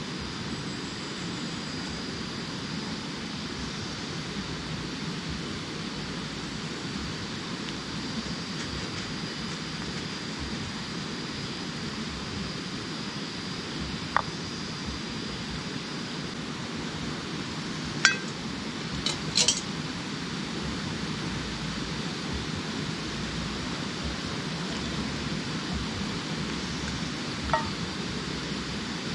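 Scattered light clinks of camp cookware: one about halfway, a quick cluster a few seconds later, and one near the end. Under them is a steady hiss of forest ambience, with a thin high insect whine through the first half.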